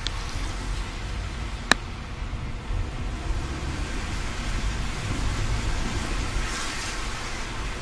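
Inside a moving car on a wet road: steady low road and engine rumble with the hiss of tyres on wet tarmac. A single sharp click about two seconds in, and a windscreen wiper swishing across the wet glass near the end.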